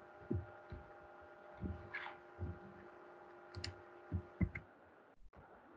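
Faint scattered taps and clicks from working a computer at a desk: soft low knocks and a few sharper clicks. A steady electrical hum runs underneath and cuts out about four and a half seconds in.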